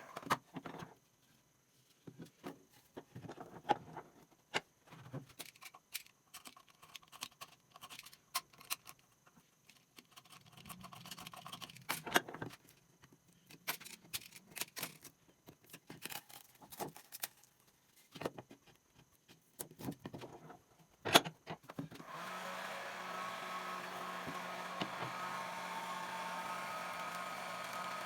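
Scattered knocks, taps and clicks of hand work on a wooden cricket bat, then a small electric motor starts a steady whir about 22 seconds in.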